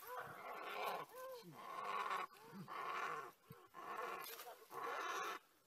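An animal calling over and over: about seven harsh, rasping cries, a little over one a second.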